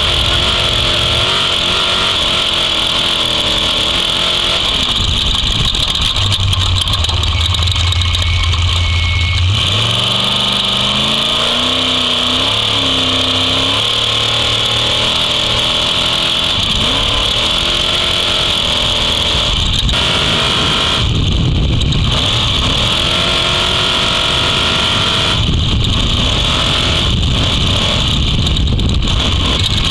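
Off-road trophy truck engine running hard at speed on a dirt road, its pitch rising and falling with throttle and gear changes, over a steady rushing noise.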